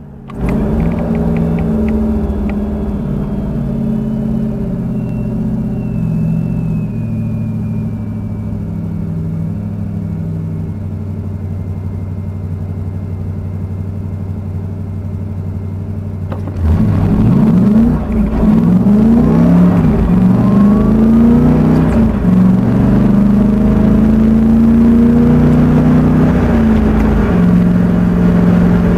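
Car engine and road noise heard from inside the cabin, sped up to double speed. At first a steady low hum as the car slows and waits. About seventeen seconds in it gets louder, its pitch rising and falling over and over as the car pulls away and speeds up.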